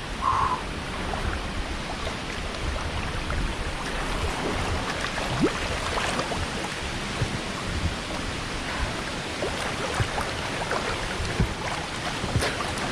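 Water splashing as a person swims through a stream pool, with scattered small splashes and drips over a steady rush of running water.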